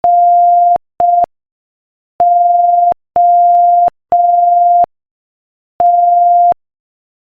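Morse code at 5 words per minute, sent as a single steady beeping tone in long and short beeps: long-short, then three longs, then one long, spelling N, O, T.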